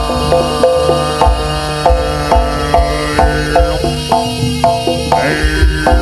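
Live jaranan accompaniment from a Javanese gamelan ensemble: drums and tuned metal percussion keep a brisk, even rhythm while a higher melodic line holds and slides between notes over it.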